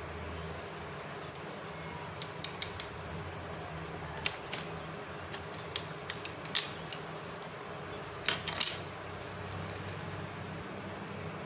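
A graphite pencil being sharpened and its lead scraped over paper: scattered short clicks and scrapes in quick little clusters, the loudest about three-quarters of the way through, over a steady low hum.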